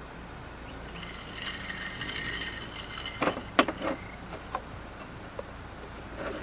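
A steady, high-pitched chorus of forest insects, with a brief cluster of sharp knocks or thumps about three and a half seconds in.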